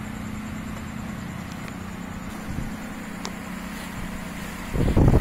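Steady low background hum with a few faint light clicks from the gearbox shift fork and rail being handled. About five seconds in, a loud rush of wind or handling noise on the microphone begins.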